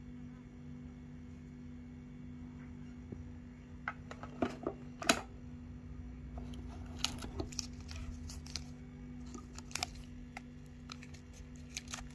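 Scattered clicks, taps and short rustles of hands handling a camera and its packaging, starting about four seconds in, over a steady low electrical hum.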